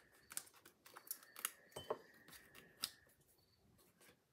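Faint handling noise of cardstock: a few light taps and clicks with soft paper rubbing as a cardstock layer backed with foam adhesive dots is pressed onto a card base, mostly in the first three seconds.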